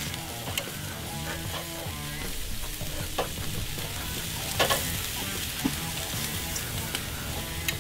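Shrimp and steaks sizzling on a wire grate over a charcoal fire, a steady hiss, with a few sharp clicks of metal tongs against the grate as the shrimp are turned.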